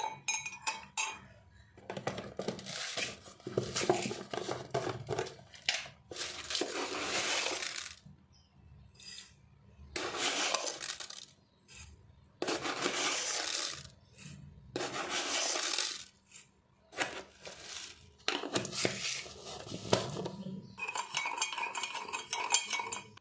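A metal spoon clinking and scraping in a mug, in repeated bursts of a second or two with short pauses and a few sharp clinks in between.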